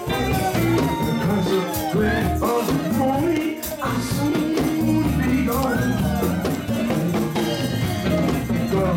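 Live gospel church music: instruments playing with percussion keeping a beat, and voices singing.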